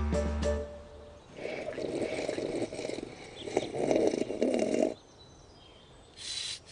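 Cartoon sound effect of juice being sucked through a straw: a gurgling slurp that breaks off briefly and resumes, then stops, with another slurp starting near the end. It is the sound of a cup being sucked empty. The closing notes of the music fade out in the first second.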